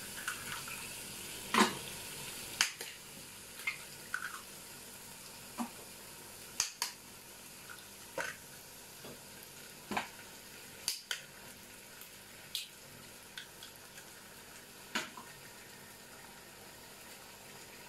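Eggs being cracked against the rim of a non-stick pan, one after another: a string of sharp taps and clicks that thin out after about 15 seconds. Under them, a faint steady sizzle of vegetables frying in the pan.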